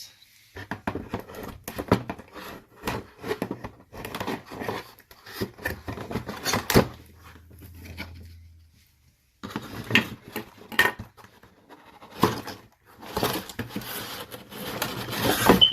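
Packaging being torn open and rustled by hand to free Nerf Rival foam balls. It makes irregular crackling, tearing and knocking, with a short pause a little past halfway.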